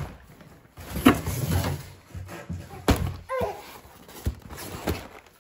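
Cardboard shipping boxes being handled and opened: flaps pulled back, the cardboard rustling, with a few sharp knocks and thuds as the boxes are moved.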